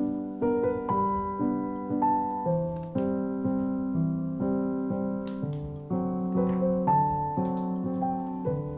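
Piano music: notes and chords struck about every half second, each ringing and fading.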